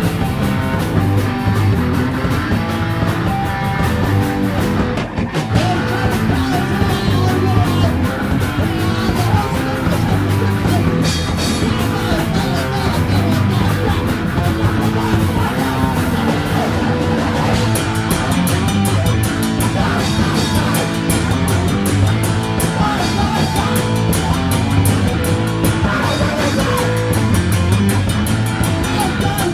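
Rock music played by a full band: drum kit, guitar and bass at full volume without a break, with the cymbal strokes growing busier in the second half.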